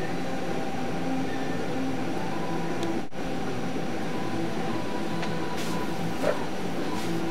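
PR2 robot's steady mechanical hum with faint whining tones that come and go as its arm motors move. There is a short knock about six seconds in.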